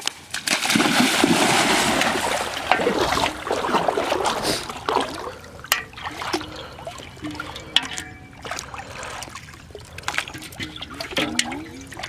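Shallow river water splashing and sloshing as a person wades in, loudest in the first few seconds, then quieter trickling and drips with scattered clicks as plastic bottle floats and their cords are lifted from the water.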